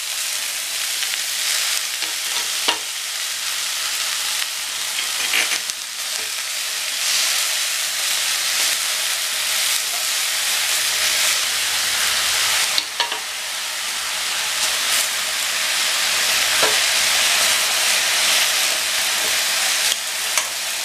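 Chopped sirukeerai (amaranth leaves) sizzling in hot oil in a metal kadai as they are stirred and wilted with a metal spatula: a steady frying hiss with a few sharp clinks and scrapes of the spatula against the pan.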